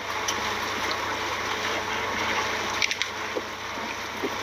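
Steady gush of running water on the boat, with a low steady hum underneath; it starts abruptly and carries a few faint clicks about three seconds in.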